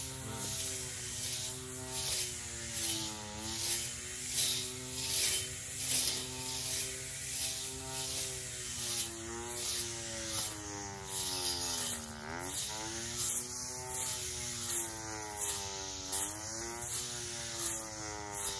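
Battery-powered weed eater with a cutting blade, its electric motor running with a steady whine that sags in pitch several times as the blade meets heavier growth, most deeply about twelve seconds in. Rhythmic swishes come about once a second.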